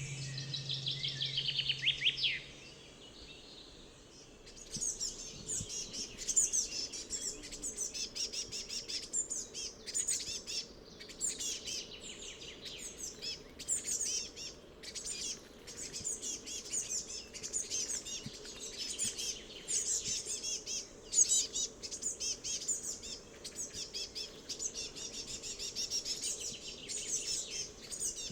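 Songbirds singing, a dense chorus of quick high chirps and trills overlapping without a break, starting about four seconds in. Before that, a brief steady low hum with a high falling trill stops about three seconds in.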